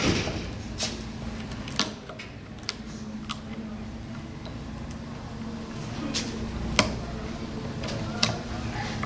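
A screwdriver prying old cane webbing up out of a chair frame's glued groove, giving scattered sharp clicks and snaps as the cane and glue break loose, over a steady low hum.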